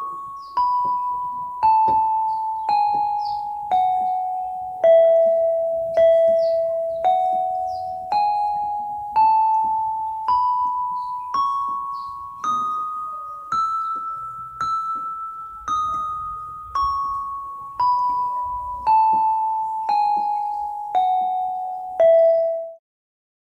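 Yamaha PSR-32 electronic keyboard playing a scale one note at a time, about a note a second, each note dying away. The scale steps down, climbs back up about an octave, then steps down again, and the last note cuts off shortly before the end.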